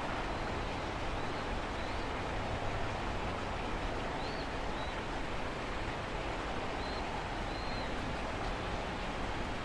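Steady outdoor background hiss with a few faint, short high chirps scattered through it.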